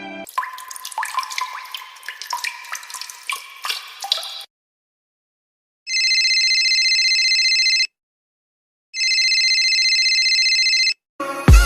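Stock sound effects in a row. First comes about four seconds of watery dripping and bubbling with many small clicks. Then an electronic ringing tone sounds twice, each ring about two seconds long with a second's gap, and just before the end loud electronic dance music with heavy bass kicks in.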